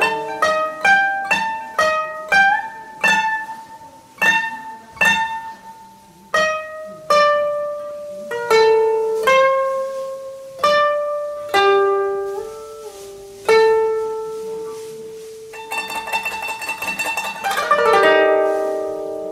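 Solo koto playing a slow melody of single plucked notes, a few bent upward in pitch after the pluck. Near the end comes a fast run of rapidly repeated plucks that closes on a chord.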